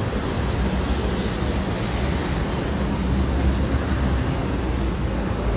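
Steady street traffic noise with a low rumble.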